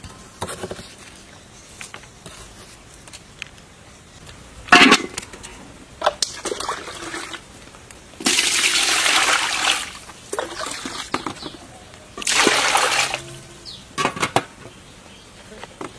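Water being poured and splashing over raw pork in a metal pot, in several separate bursts. The longest and loudest burst lasts about a second and a half and comes about halfway through.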